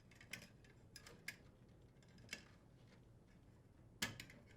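Faint, scattered light clicks and ticks of hands handling electrical wiring as the power and grounding wires are fed through the hole in the vent hood's junction box; the loudest click comes about four seconds in.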